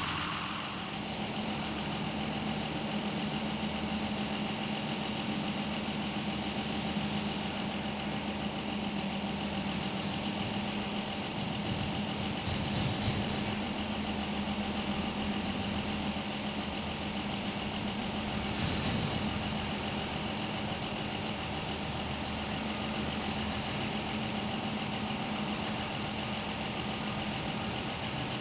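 Heavy diesel farm machinery running steadily with a constant droning tone, swelling briefly twice partway through.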